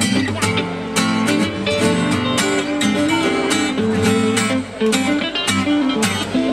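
Acoustic guitar and electric guitar playing together live through a PA, an instrumental passage of quickly plucked and strummed notes and chords.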